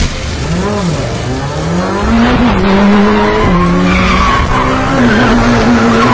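Car engine revving hard, its pitch climbing and falling with a few sudden steps, as the tyres squeal through a drift.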